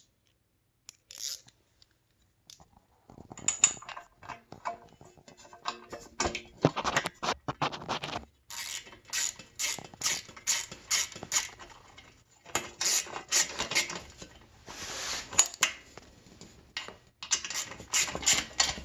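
Metal clicking and scraping of a wrench and socket turning a nut onto an exhaust flange stud, in repeated bursts of quick clicks that start about three seconds in.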